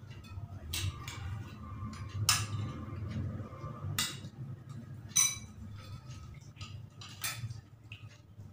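A metal spoon clinks and scrapes against a ceramic bowl and plate as chayote slices are scooped onto rice. There are five or six sharp clinks a second or so apart, over a low steady hum.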